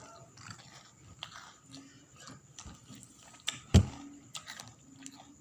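Scattered light clicks and taps of utensils being handled, with one sharp knock a little under four seconds in.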